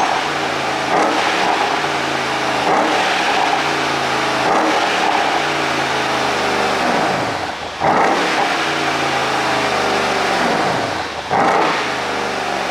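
Mercedes-AMG CLS63's twin-turbo V8, fitted with a pop-and-crackle tune, revving up and falling back again and again. There are sharp cracks at several points, the loudest two in the second half.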